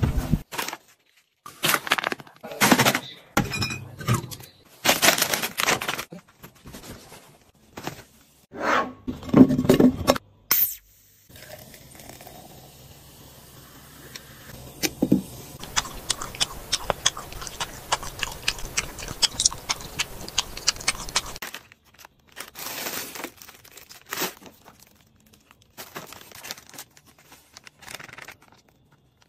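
Several handling sounds in turn: loud scrapes and knocks for the first ten seconds, then a carbonated drink poured over ice into a glass, fizzing and crackling for about ten seconds and stopping suddenly, then quieter rustling of a plastic seasoning packet emptied into a wok.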